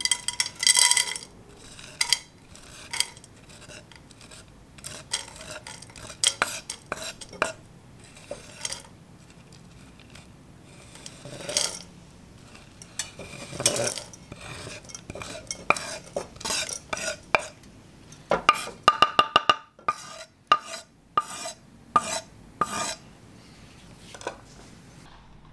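A knife blade scraping chopped chocolate off a wooden cutting board into a saucepan, with irregular scrapes and the clicks of pieces dropping into the pot. A quick run of ticks comes about three quarters of the way through.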